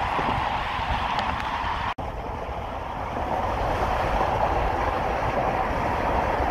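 Steady road and wind noise inside a car cruising on a freeway, cutting out for an instant about two seconds in.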